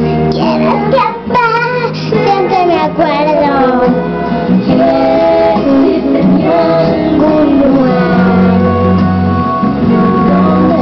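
A young girl singing a Spanish-language song over recorded instrumental backing music, her held notes wavering.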